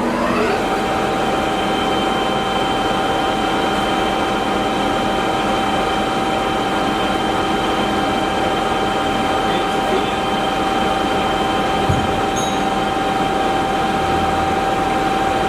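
DoAll by Romi 20H engine lathe running with its spindle turning: a steady gear whine over mechanical noise. The whine settles onto one pitch after a brief dip and rise in pitch at the start.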